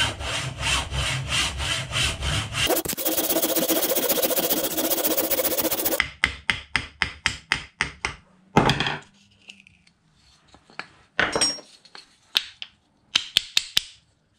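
Hand saw cutting through a seasoned cherrywood billet in a vise, in steady strokes about three a second, then quicker scraping for a few seconds. About six seconds in comes a run of sharp hammer taps to split the piece, with a louder knock near the middle, then light clicks of the two wooden halves being handled.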